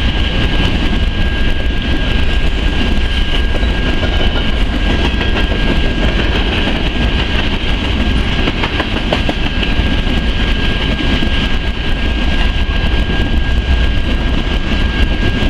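Freight train of BNSF covered hopper cars rolling past at steady speed: a continuous noise of wheels on rail with a strong low rumble. A thin steady high tone runs through it.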